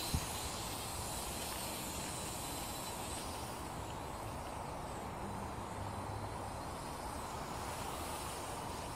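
Small toy quadcopter's motors and propellers running steadily in flight, heard as an even airy hiss with a faint whine underneath; a short click just after the start.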